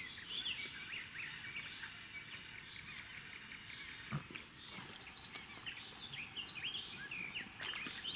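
Songbirds chirping and trilling over a steady outdoor hiss, with a single soft knock about four seconds in.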